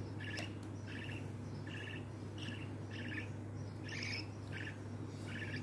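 Budgie chick giving short, repeated chirps, about two a second, over a low steady hum.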